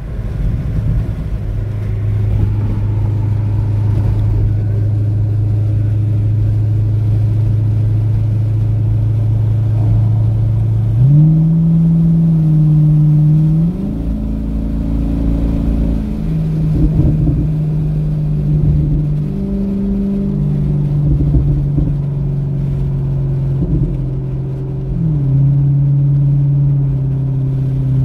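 Corvette V8 engine heard from inside the cabin, droning steadily at highway cruise over road rumble. About eleven seconds in the revs jump up, then rise and fall in sudden steps several times as the car accelerates.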